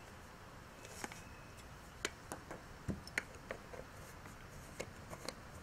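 Glass spice jars and containers being handled and set down on a tabletop: a string of sharp clicks and small knocks, about ten in all, from about a second in.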